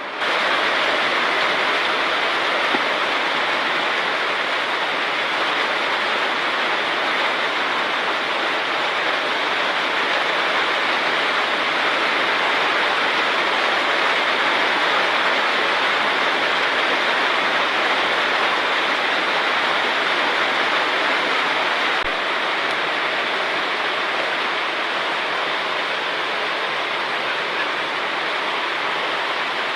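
Very heavy rain pouring straight down with no wind: a steady, even hiss of downpour on the street and surfaces.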